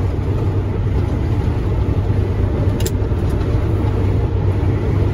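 Steady engine drone and road noise inside the cab of a 2019 International ProStar semi truck cruising at highway speed.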